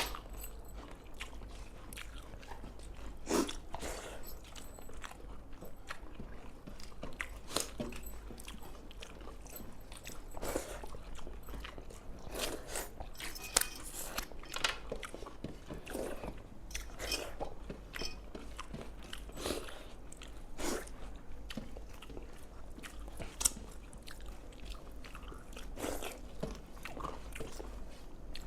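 People chewing and biting into pepper chicken and rice, with irregular crunches every second or so.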